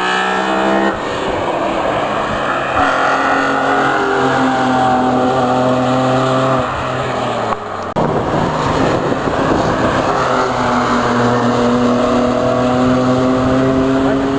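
BMW M3 engines driving hard past the track with a loud intake howl, the pitch climbing under acceleration. About a second in the note drops, and about seven and a half seconds in it breaks off and a second pass begins, rising again.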